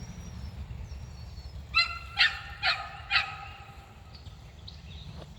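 A dog barking four times in quick succession, about two barks a second, over a steady low rumble.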